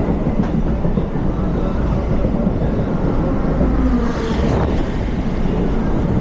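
Train running on the rails with a steady, loud rumble of wheels on track, and a brief hiss about four seconds in.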